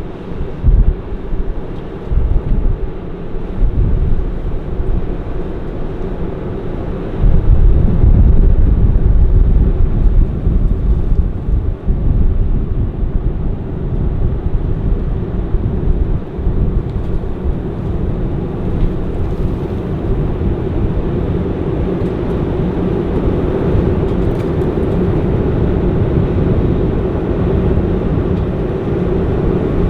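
New Holland CR 9.90 combine harvesting corn, its engine and threshing machinery running steadily, with a surge of low rumble for a few seconds about seven seconds in.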